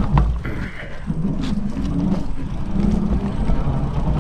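Fat-tire e-bike ridden on throttle over rutted soft sand: a steady low rumble with a hum that wavers in pitch, and a few sharp knocks from bumps in the trail.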